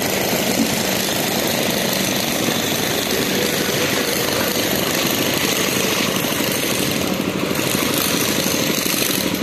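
Diesel generator sets in an LHB luggage, brake and generator car running steadily.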